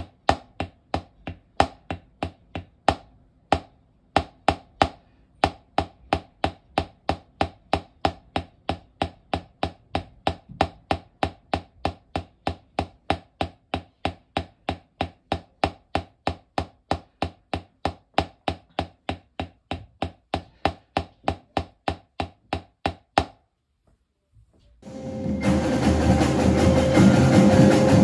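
Drumsticks striking a practice pad in a steady, even stream of single strokes, about three a second, playing a snare drum exercise. The strokes stop about 23 seconds in, and after a short silence drumline percussion music begins.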